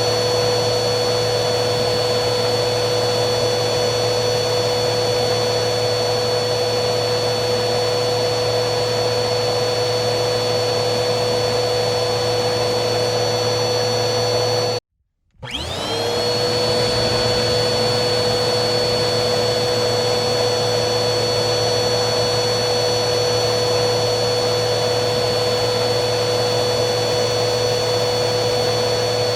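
Vacuum cleaner motor running steadily, a full hum with a high whine over it. About halfway through it cuts out abruptly for half a second, then spins back up, its whine rising quickly in pitch before it settles back to the steady run.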